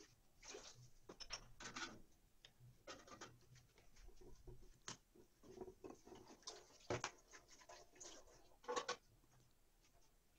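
Plastic multi-wheel fluted chebakia cutter rolled over a sheet of dough on a tabletop: faint, irregular clicking and scraping, with two sharper knocks in the second half.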